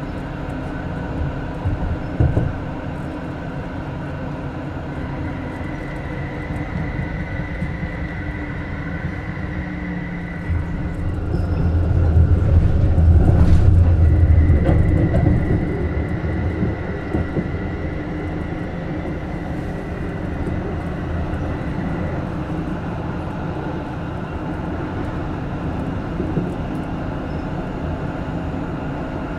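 Düwag M8C-NF tram running between stops, with its modernised traction drive control: low running rumble with a steady high inverter whine that breaks off midway and comes back, and a louder rumble for a few seconds around the middle.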